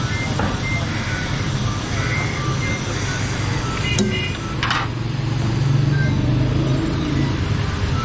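Noisy street-stall ambience: a steady low rumble, with a sharp click about four seconds in and a brief swish just after.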